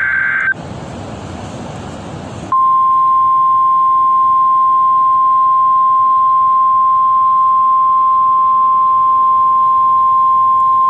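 NOAA weather radio alert: the end of a burst of warbling SAME data tones about half a second in, then a couple of seconds of radio hiss. Then the loud, steady 1050 Hz warning alarm tone starts about two and a half seconds in, signalling that a new severe thunderstorm warning message is about to be read.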